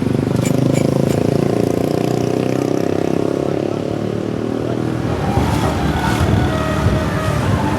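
A bus engine running loud and close, as if pulling past and away, its note easing after about four seconds.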